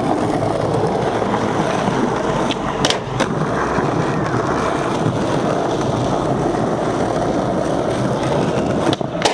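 Skateboard wheels rolling over rough asphalt, a steady rumble, with a few sharp clicks about three seconds in and again just before the end.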